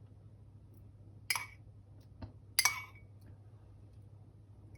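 Two short clinks of a utensil against a dish, about a second and a half apart, with a faint tick between them; the second clink rings briefly. This is a spoon against a bowl or dish while the sauce is poured out.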